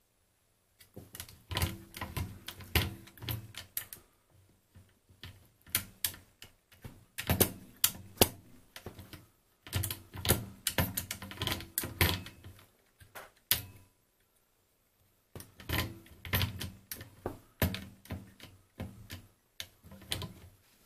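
Feliks-M pinwheel calculator's carriage being shifted by hand along its rail, clicking through its indexing detent positions in four bursts of rapid clicks with short pauses between.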